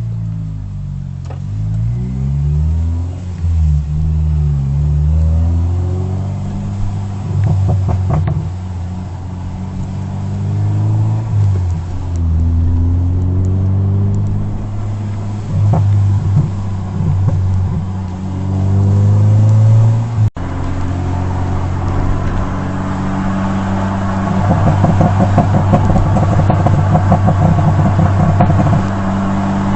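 Honda K20A four-cylinder engine breathing through a J's Racing exhaust on stock catalytic converters, revving up and down again and again, with sharp pops and crackles from a pop-and-bang tune as the revs fall. After a brief break about two-thirds of the way in, it runs steadier and harsher to the end.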